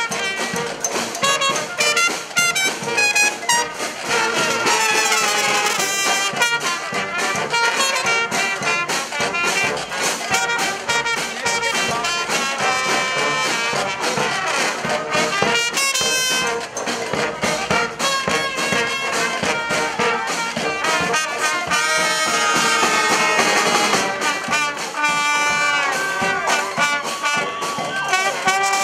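Street brass band playing a lively number: trumpets and trombones over frequent drum hits.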